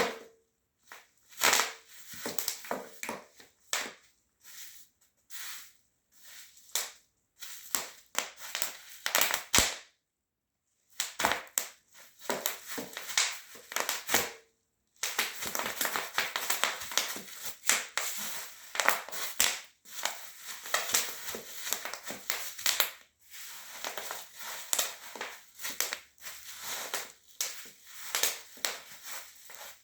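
Bubble wrap being crushed under high-heeled shoes: irregular clusters of sharp pops and crinkling crackle, broken by two brief pauses about ten and fifteen seconds in.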